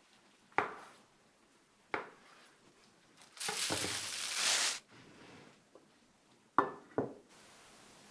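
A chef's knife cutting through a rolled omelette and knocking on a wooden cutting board, two sharp knocks over a second apart. Then about a second and a half of loud rustling, scraping noise, followed by two more quick knocks near the end.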